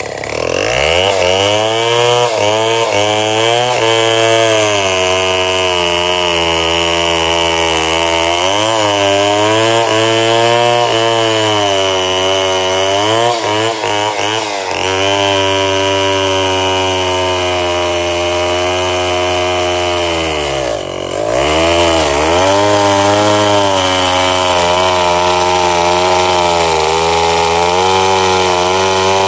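Chainsaw engine running at high revs, cutting into a tree, its pitch wavering up and down as the chain bites the wood. About twenty seconds in, the revs drop sharply and then climb back.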